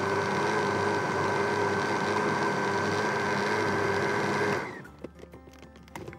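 Countertop electric blender running steadily as it blends juice, then switched off about four and a half seconds in, the motor spinning down quickly. A couple of light knocks follow.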